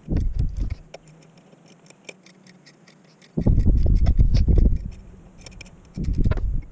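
Small irregular metal clicks and ticks of hand tools working on a push mower's engine while the carburetor is being taken off. Three low rumbling gusts of wind on the microphone are louder, one at the start, one in the middle and one near the end.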